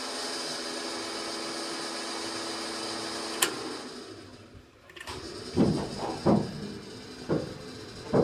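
Diesel locomotive start: a steady hum of the fuel priming pump, then a sharp click as the switch is turned to engine start about three and a half seconds in. The sound dies away, and from about five seconds the engine begins firing in irregular loud beats as it turns over.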